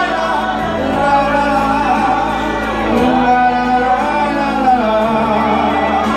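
Song music: a pop ballad with a gliding, held melody line over sustained bass notes.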